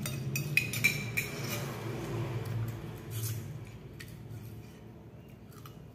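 Metal spoons clinking against ceramic bowls during a meal, a few sharp clinks in the first second and a half, then quieter.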